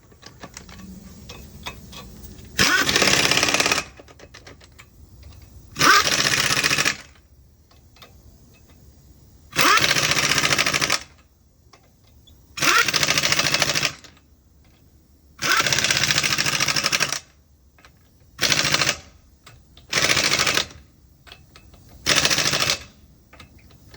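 Impact wrench turning a 1/2-inch drive impact socket, hammering in eight short bursts of about one to one and a half seconds each, with faint handling clicks in the pauses between.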